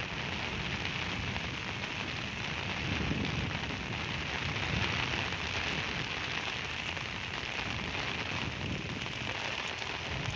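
Heavy rain pouring steadily, an even hiss of rain.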